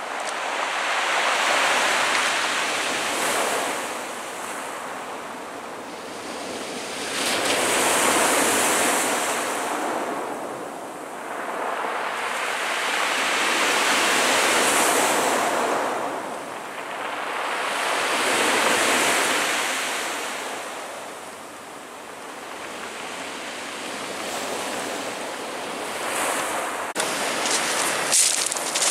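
Black Sea waves surging and breaking on the shore, one every five to six seconds, each swelling and falling away. A run of sharp crackles starts just before the end.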